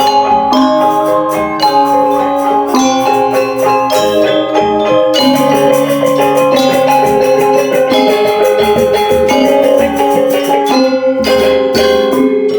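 Balinese gamelan playing: bronze metallophones struck in quick, dense runs of ringing notes over sustained lower tones.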